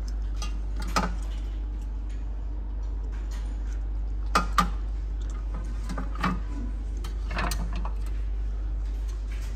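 Bakeware being handled on a shop shelf: a few sharp knocks and clinks, two of them close together about four seconds in, over a steady low hum.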